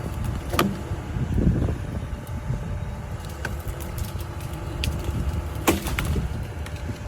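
John Deere excavator's diesel engine running steadily, with a few sharp cracks over it, the loudest near the end.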